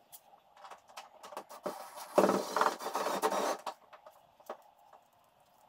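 A handheld cordless power tool runs in one burst of about a second and a half, with a fast, even rattling pulse, as a fastener is driven during an air-spring install under a pickup. Light clicks and taps from handling hardware come before and after it.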